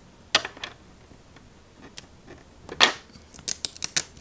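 Fingers pressing and smoothing a tape strip over a folding phone's hinge: a few sharp light taps, a short scraping rustle a little before three seconds in, then a quick run of small clicks near the end.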